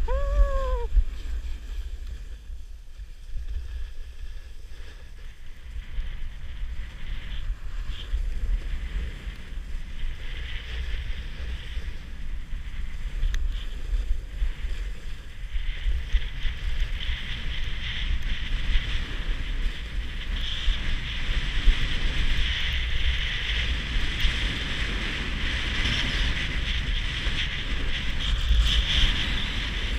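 Wind buffeting the microphone of a helmet-mounted camera while riding down a groomed ski slope: a steady low rumble with a hiss of sliding over the snow that grows louder from about halfway through. A short pitched call rises and falls right at the start.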